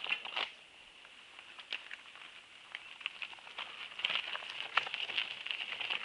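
Mountain bike tyres crunching and crackling over loose rocky gravel. The crunching tails off in the first half second, leaving scattered small clicks, then grows louder again about four seconds in as the bike passes close by, and stops just at the end.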